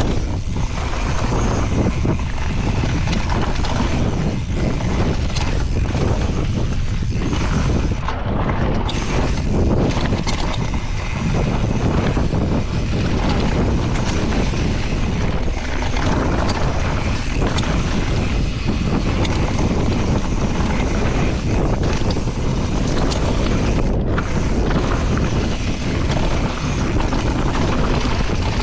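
Wind buffeting the microphone of a mountain bike riding fast down a dirt trail, with the tyres rolling on dirt and frequent brief knocks and rattles from the bike going over bumps.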